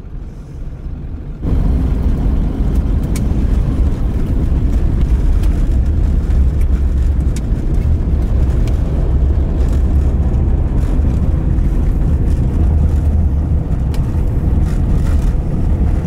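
Cab noise of a moving 1996 Ford F350 with the 7.3 Powerstroke diesel: a steady, loud, low rumble of engine and tyres on a snowy road. It jumps up abruptly about a second and a half in.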